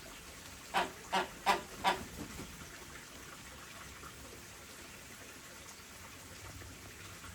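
Chilean flamingo giving four short calls in quick succession about a second in, followed by a couple of fainter ones, over a steady background hiss.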